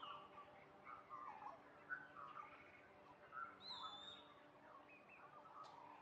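Faint birdsong: scattered short chirps and whistles from several small birds, one clearer whistle about three and a half seconds in, over a faint steady hum.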